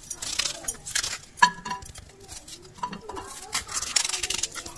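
Kitchen knife scraping and clicking against the inside of a coconut shell as the flesh, loosened by heating the shell, is pried away in pieces. A few brief ringing clinks, the loudest about a second and a half in.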